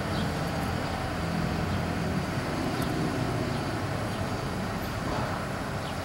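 Outdoor tornado warning sirens sounding in the distance: a steady low tone over a background hum, growing fainter in the second half.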